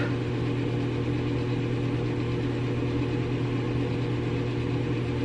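A steady low hum with a few faint steady tones above it, unchanging throughout, like a motor or fan running.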